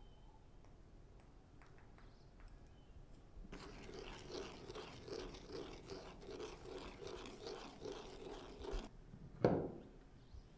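Rhythmic crunching of food being worked by hand in the kitchen, about two and a half strokes a second for some five seconds, starting a few seconds in. It is followed shortly after by one short, loud thud with a falling pitch.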